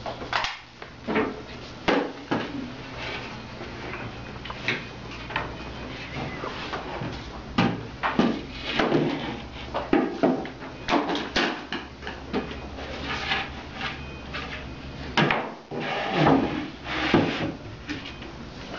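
Wooden cabinet panels being handled and fastened together with a crown stapler. There is a run of sharp knocks and clicks at irregular intervals, some close together, with wood scraping between them.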